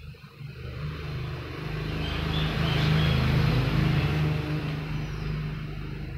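A motor vehicle passing by: engine noise swells over about two seconds, then slowly fades.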